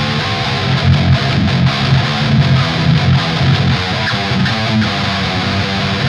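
Eight-string electric guitar fitted with Invander humbucker pickups, played through heavy distortion: a low metal riff on the bottom strings.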